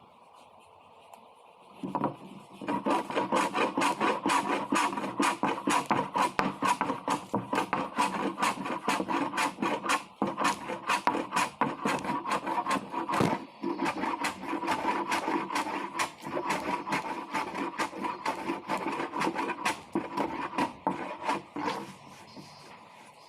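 Hand abrasive (sandpaper or a file) rubbed back and forth over wood in quick, even strokes, several a second, as a puttied repair is smoothed. It starts about two seconds in, pauses briefly twice midway, and stops shortly before the end.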